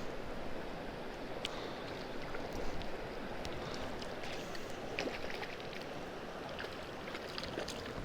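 Steady rushing and babbling of a small mountain creek, with a few faint clicks scattered through it.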